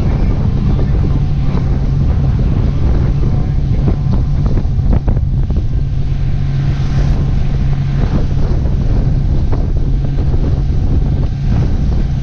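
Boat engine running steadily with a low, even hum, while wind buffets the microphone.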